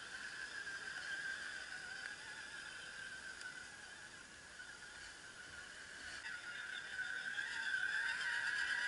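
Steady high-pitched whine of scale RC crawler trucks' electric motors and gearboxes as they crawl over sand and dirt, growing louder about six seconds in as a truck works its way close by.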